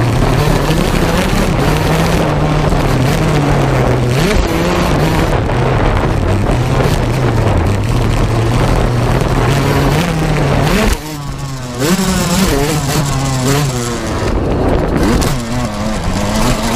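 Yamaha YZ125 two-stroke single-cylinder motocross engine ridden hard, its revs rising and falling with the throttle. About eleven seconds in the throttle is shut and the engine drops back for about a second, then it revs up again in quick repeated climbs.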